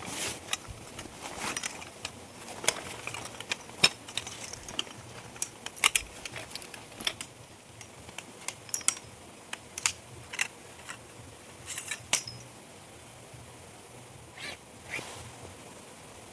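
Handling noise: a run of irregular light clicks and clinks, as small objects are knocked and set down. They come thick for the first several seconds, thin out, and stop after a last pair about fifteen seconds in.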